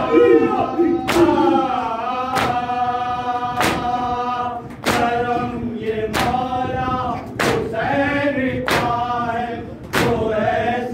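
A group of men chanting an Urdu noha (Shia mourning lament) in unison, led by a reciter. Chest-beating (matam) strikes land together about every second and a quarter, keeping the beat of the lament.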